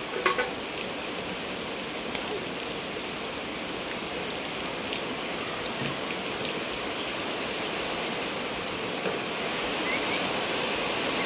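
Steady rain falling on wet concrete, an even hiss of many drops, growing slightly louder near the end.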